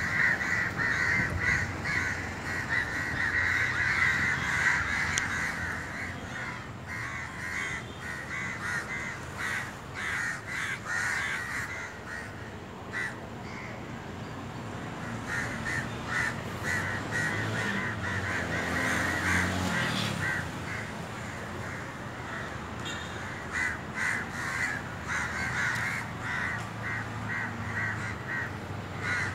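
Crows cawing over and over, many calls close together, thinning out in the middle and picking up again near the end, over a low steady rumble.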